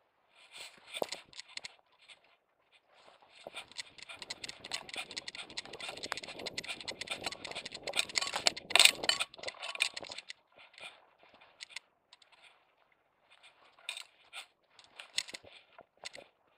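Dry grass rustling and scraping against a dog-mounted action camera as the dog pushes through a field, with clicks and knocks from the camera mount. The rustling is heaviest through the middle, with the loudest scrape about nine seconds in, then thins to scattered clicks.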